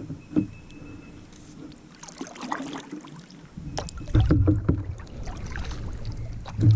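Kayak paddle strokes dipping and splashing in lake water, with a low rumble coming in about four seconds in.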